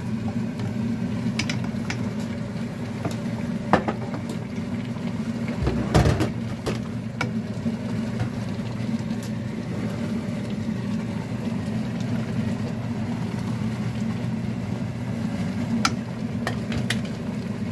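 Steady low hum of a stainless steel pot of chicken and potatoes cooking on the stove, with a few sharp clinks and knocks of a ladle against the pot, the strongest about four and six seconds in.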